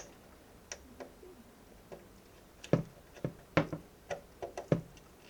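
Small, sharp, irregular clicks and taps of fingers handling tiny plastic front-panel connectors and pushing them onto a motherboard pin header, most of them in the second half.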